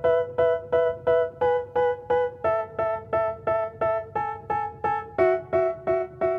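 Background music: an instrumental stretch of the song, with a keyboard striking short repeated chords about three times a second. The chord shifts lower about two and a half seconds in and again about five seconds in.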